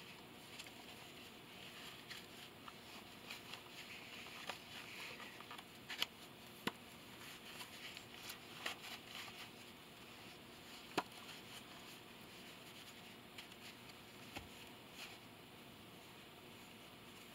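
Faint handling sounds of a tarot deck and its cut-down cardboard box being packed into a small handmade bag: soft rustling with a few sharp clicks and taps, the loudest around six and eleven seconds in.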